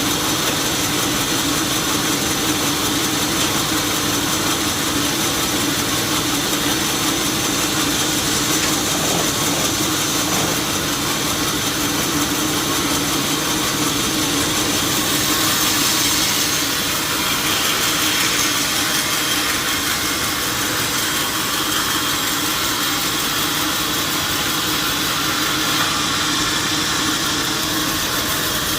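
Sawmill machinery running steadily: a continuous loud drone with a constant low hum and a high whine, without breaks.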